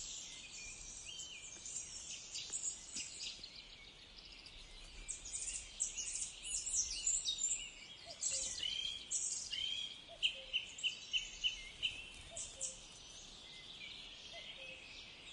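Songbirds chirping and calling over a faint outdoor hiss, with a quick run of about six repeated short notes around ten seconds in.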